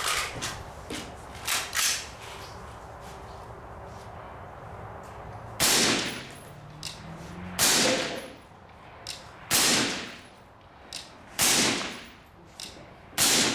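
Suppressed AR-15 (Midwest Industries 16-inch rifle with a YHM Turbo K suppressor) firing aimed single shots: one as it starts, then after a few seconds' pause five more about two seconds apart. Smaller, lighter clicks and cracks fall between the shots.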